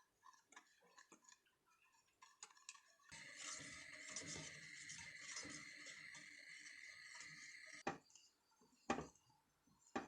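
Quiet kitchen handling sounds: light clicks, then a steady hiss with a faint whine for about five seconds that cuts off suddenly, followed by a few sharp knocks.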